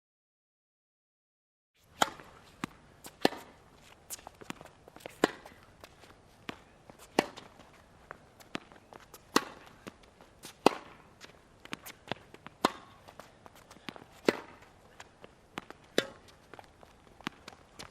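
Tennis rally on a hard court: a ball struck by rackets and bouncing on the court, sharp hits every second or two, with footsteps between them. The sounds start after about two seconds of silence.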